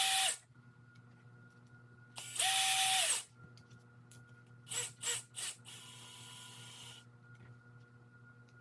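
Power drill driving screws in short bursts. There is a brief whir at the start and a longer one a couple of seconds in, the motor spinning up and winding down each time. A few clicks and a softer whirring stretch follow.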